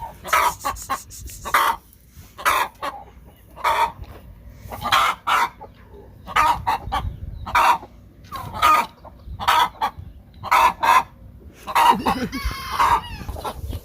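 Broody hens clucking and squawking in short, loud calls about once a second, angry at having their eggs taken; a longer call that wavers in pitch near the end.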